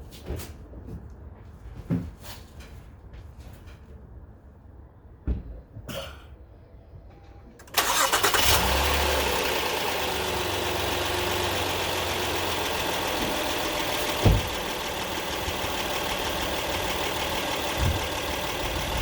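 A few light clicks and knocks, then, about eight seconds in, the 2017 Acura RDX's 3.5-litre V6 cranks, catches and settles into a steady idle. It is the first start after an oil change, run to circulate the fresh oil. A single thump comes partway through the idle.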